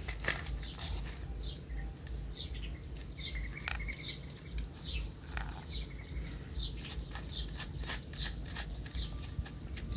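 A puppy lapping milk from a plastic bowl with ice in it, giving a run of short wet licks and clicks. Small birds chirp over and over.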